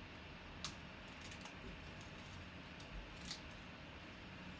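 A few faint, short clicks and rustles of something being handled over low room noise, one a little after the start and two close together about three seconds in.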